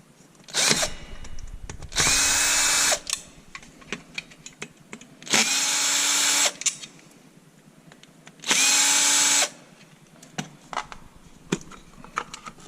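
Power drill run in four short bursts: a brief one, then three of about a second each. Each burst spins up quickly to a steady whine, with clicks and knocks of handling between them.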